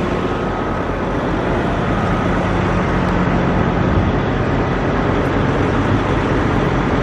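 Diesel engine of a semi truck idling with a steady, loud hum.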